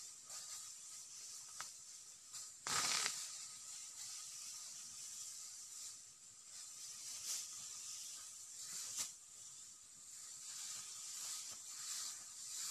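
Dry cogon grass rustling and swishing in short bursts as it is cut and gathered by hand. The loudest burst comes about three seconds in, over a steady high hiss.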